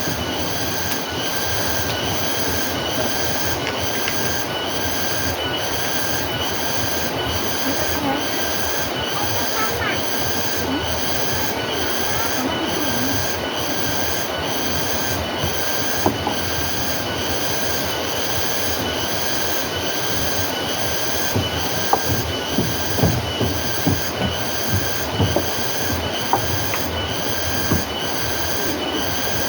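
A steady chorus of insects, high-pitched and pulsing about twice a second. Near the end, a string of soft low knocks falls over it.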